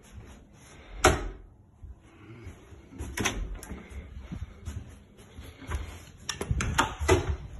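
Sharp knocks and clunks of an interior door being opened and walked through, with a quick cluster of latch and handle clicks near the end. The loudest single knock comes about a second in.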